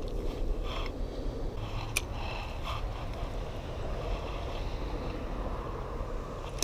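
Wind buffeting the microphone as a steady low rumble, with a few faint clicks and rustles and one sharper click about two seconds in.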